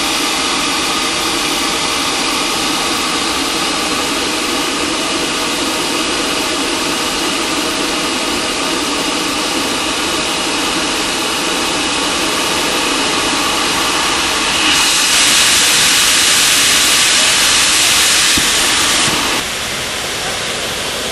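Akron Brass Conquest industrial fire monitor discharging water: a loud, steady rushing hiss. About fifteen seconds in it turns louder and brighter for about four seconds, then drops back to a slightly quieter rush.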